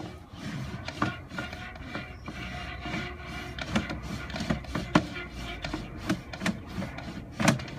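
Sewer inspection camera and its push cable being pulled back through the drain pipe: irregular scraping and rubbing, with several sharp knocks as the camera head and cable strike the pipe.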